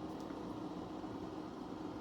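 Steady low hum and hiss, like a small fan or motor running, with a faint tick shortly after the start.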